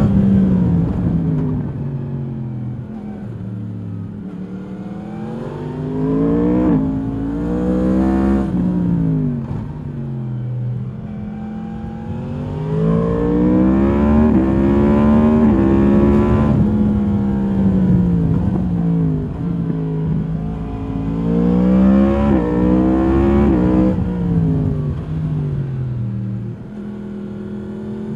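2022 Yamaha MT-10's crossplane inline-four engine on its stock exhaust, heard from the rider's position under way. The revs climb and fall again and again, with sharp drops as the throttle is rolled off or gears change.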